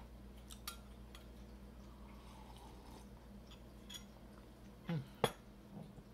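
Metal teaspoon clinking lightly against a glass tea mug a few times, with one sharper clink a little after five seconds in.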